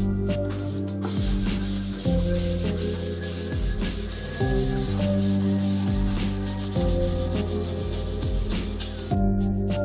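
Welded steel tube frame being sanded by hand with an abrasive pad: quick scratchy rubbing strokes that start about a second in and stop near the end, over background music with held notes and a bass line.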